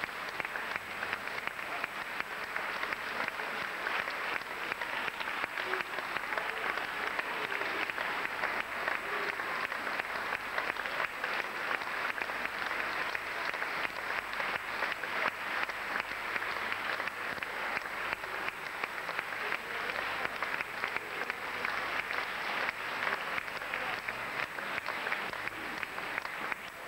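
A hall full of audience and performers clapping: dense, steady applause that keeps up without a break.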